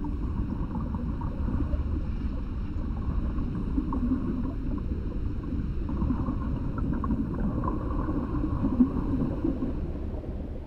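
Steady low rumbling underwater ambience, with faint wavering tones above it.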